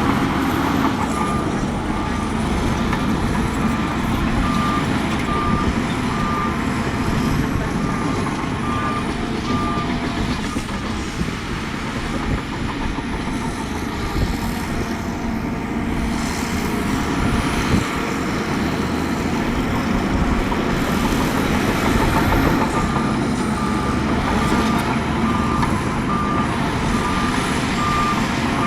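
Diesel engines of heavy earthmoving machinery running steadily under load, with a backup alarm beeping at an even pace: it stops about ten seconds in and starts again near the end.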